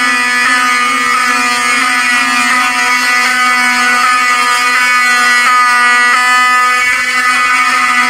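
Fire alarm horns sounding continuously in a loud, steady tone with no on-off pattern. The system has gone into alarm because the heat detector was tripped with a lighter flame.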